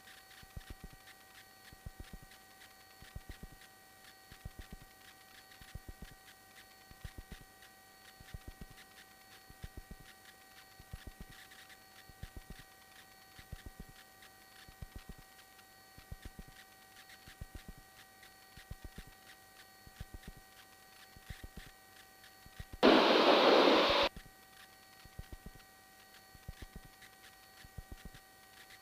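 Aircraft radio and intercom audio feed with no transmissions: a faint steady hiss and hum with a few fixed tones and regular clicking interference about once a second. About three-quarters of the way through comes a loud burst of radio static lasting about a second.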